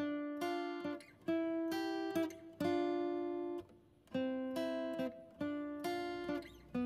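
Background music of strummed acoustic guitar chords, one new chord every half second to a second or so.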